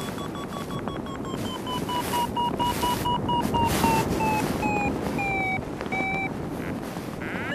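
Paragliding variometer beeping rapidly in a climb, its beeps slowly dropping in pitch and spacing out as the lift weakens, then stopping about six seconds in. Steady wind rush on the microphone underneath.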